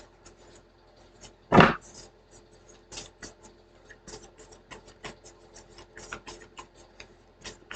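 A string of light clicks and taps, with one louder knock about a second and a half in.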